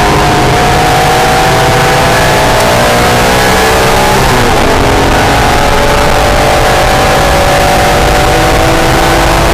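NSX's V6 engine running hard on track. Its pitch sags slightly, breaks briefly about four seconds in, then climbs steadily as the car pulls, over a constant loud rush of wind and road noise.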